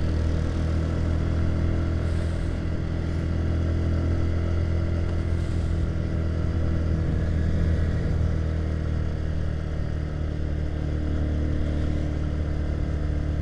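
Motorcycle engine running steadily as the bike cruises at an even speed, heard from the rider's seat.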